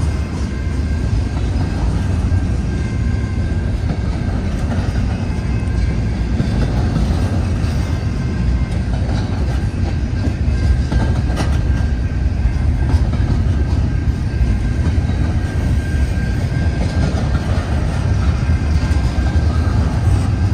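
CN double-stack intermodal container train rolling past, a steady low rumble of steel wheels on the rails with a faint, thin, high steady tone above it.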